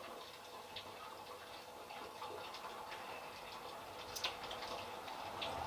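A man sipping and swallowing porter from a glass mug in a quiet room with a faint steady hum, with a few soft scattered clicks; the sharpest comes about four seconds in.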